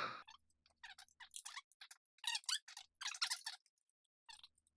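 Screwdriver driving screws to fasten a motherboard into a PC case: a sharp click, then several short runs of quick metallic clicks and scrapes.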